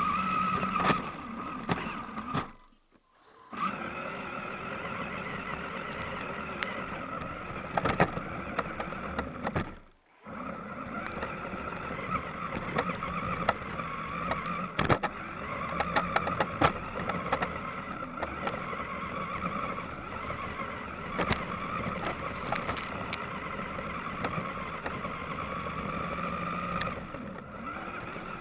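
Electric RC car's motor and gear drivetrain whining steadily as it drives over snow, heard from on board, with scattered clicks and knocks from bumps. The sound drops to near silence twice, about three and ten seconds in.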